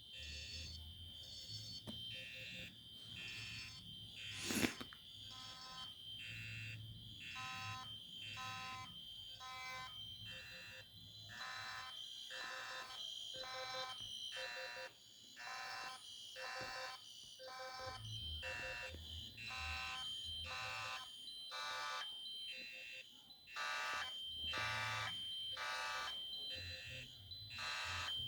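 Several fire alarm horns and sounders going off at once and out of sync: repeating horn blasts over a steady high-pitched tone. One sharp click comes about four and a half seconds in.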